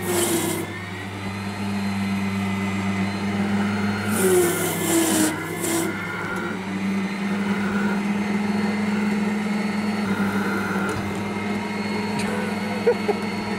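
Electric micro loader running with a steady low hum from its motor and hydraulics as its bucket drives into a pile of two wooden utility poles. Scraping from the bucket against the poles comes about four to six seconds in. The lift fails: the two poles are too much for the machine.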